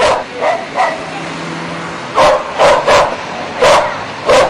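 A dog barking about five times in short, sharp barks, starting about two seconds in and spaced irregularly.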